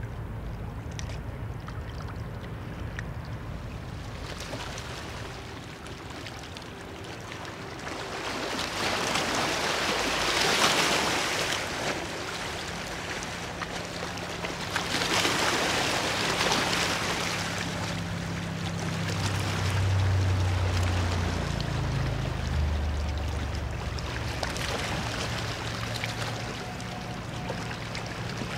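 Outdoor riverside ambience of traffic and water: a steady rush that swells loudly twice, around ten and sixteen seconds in, over a low engine hum that steps in pitch in the second half.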